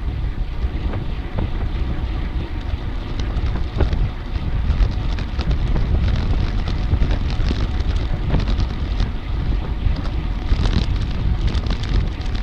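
Wind buffeting the microphone: a steady low rumble with scattered faint clicks.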